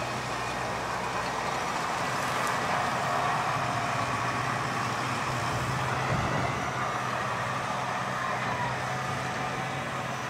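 A heavy diesel engine running steadily at constant speed, with a faint wavering whine near the end.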